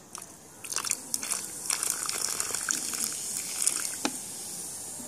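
Coca-Cola pouring from a plastic bottle into a plastic box and fizzing up, the foaming carbonated cola hissing and crackling. A sharp click about four seconds in.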